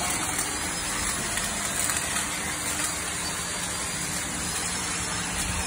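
Steady hissing, rushing noise with a faint low hum underneath, unchanging throughout.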